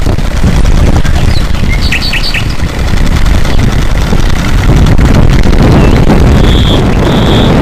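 Birds chirping in short bursts over a loud, steady low rumble of noise.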